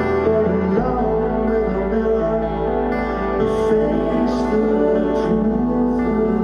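Live band music: acoustic guitar strumming over electric bass and keyboards, with a deep bass note coming in about a second in.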